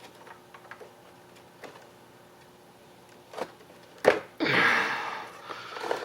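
Handling sounds from work on the wiring: scattered light clicks and taps, a sharper click about four seconds in, then about a second of rustling scrape.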